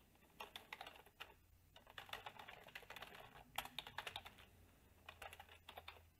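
Faint typing on a computer keyboard: quick, irregular runs of keystrokes with short pauses between them.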